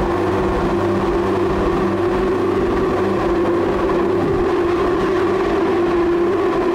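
Electronic noise music from a live rig: samples from a Bastl MicroGranny sampler, looped and processed through effect pedals and a Make Noise Strega, make a dense, industrial drone. A steady droning tone sits over a low pulsing rhythm, and the pulse breaks up about four seconds in.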